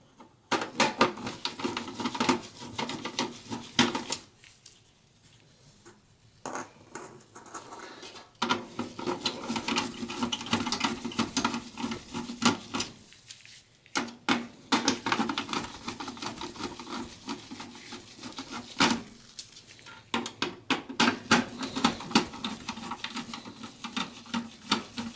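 Phillips screwdriver backing out motherboard mounting screws in a steel PC case: rapid small clicks and rattles of the bit and screws, in several bursts with short pauses between.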